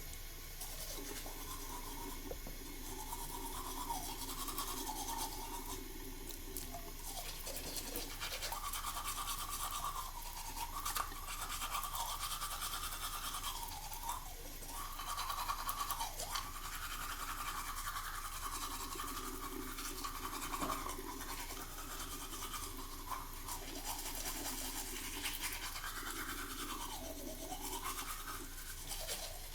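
A person brushing their teeth with continuous quick scrubbing strokes, with a tap running steadily.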